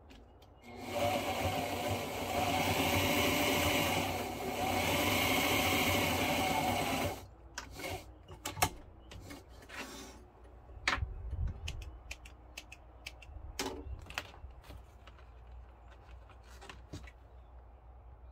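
Electric sewing machine stitching steadily for about six seconds, easing off briefly midway, then stopping. Scattered clicks and rustles follow as the vinyl piece is handled.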